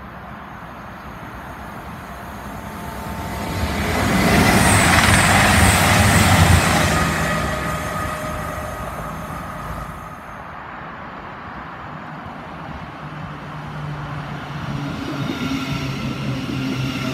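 East Midlands Railway Class 222 Meridian diesel multiple unit running through the station at speed: its noise rises, is loudest from about four to seven seconds in, then fades. Later a Thameslink Class 700 electric train pulls in, with a steady hum and whine from its motors.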